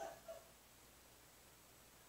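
Near silence: room tone, with a brief faint sound in the first half second.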